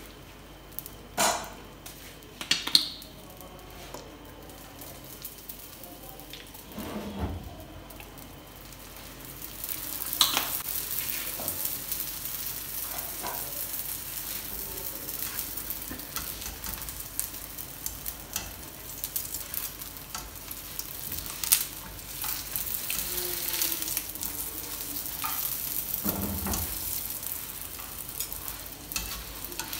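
Paratha frying on a flat tawa: a steady high sizzling hiss builds up about nine seconds in and keeps going. A few sharp clicks and knocks come over it, including a metal spatula against the pan as the paratha is lifted and turned near the end.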